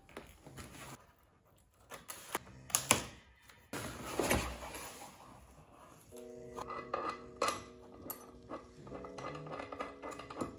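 Cardboard flat-pack box being handled and opened: sharp knocks, scraping and rustling of cardboard, with metal furniture tubes clattering as they are lifted out. Soft background music with held notes comes in about six seconds in.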